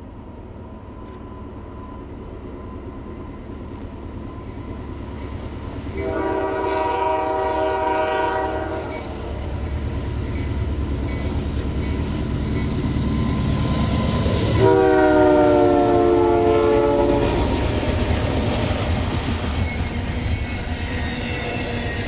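A freight train led by GE C44-9W diesel locomotives approaches and passes, its engine rumble growing louder. The lead unit's multi-note air horn sounds two long blasts about six seconds apart. The second blast comes as the train is closest and is the loudest, its pitch sliding slightly down.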